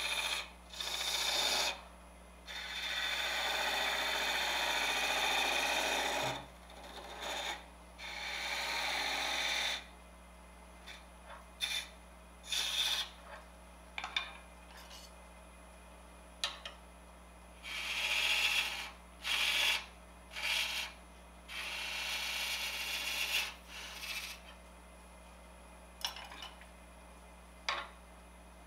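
Wood lathe hum under the scrape of a hand-held turning tool, a scraper, cutting a spinning wooden spindle. The cuts come in repeated passes of about half a second to four seconds with short pauses, and a few short taps between.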